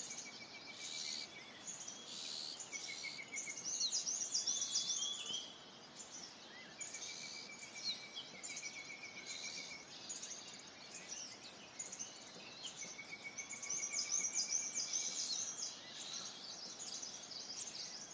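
Several birds singing and calling at once: busy bursts of quick high chirps and sweeps, loudest twice, with a short, lower trill repeated every few seconds. A steady hiss of background noise runs underneath.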